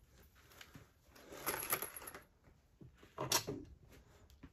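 Faint handling noises on a workbench with the drill stopped: a scraping rustle about a second in, then a short knock a little after three seconds.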